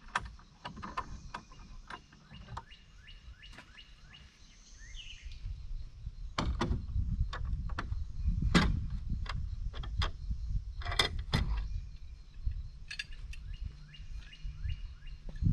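Small birds chirping again and again over a low rumbling noise, with four sharp knocks spread through the middle.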